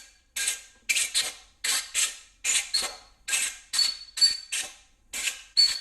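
Compressed-air blow gun fired in quick short blasts of hiss, about two or three a second and often in pairs, some ending in a brief whistle, blowing debris out of ARP main studs before they are threaded into the block.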